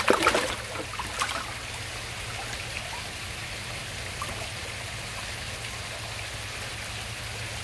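Steady running water of a koi pond, a continuous trickling and splashing wash, with a few brief sharp sounds in the first second or so.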